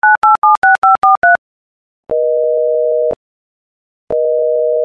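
Telephone keypad touch-tones dialling seven digits in quick succession, followed by two long steady call tones of about a second each, a second apart, as the call connects.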